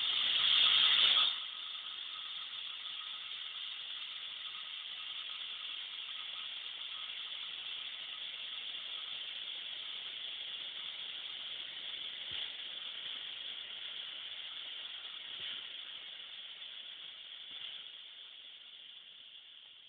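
Air hissing in through the release valve of a vacuum degassing chamber as the vacuum is gently let go back up to atmospheric pressure. The hiss is louder for about the first second, then settles to a steady hiss that slowly fades away near the end as the chamber reaches air.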